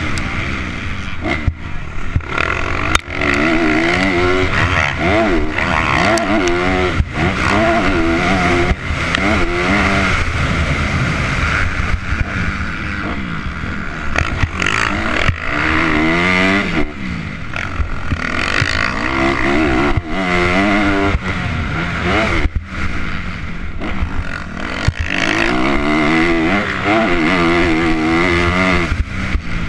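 Motocross dirt bike engine heard on board, revving up and falling back again and again as the rider works the throttle and gears around the track. There are a few sharp knocks along the way.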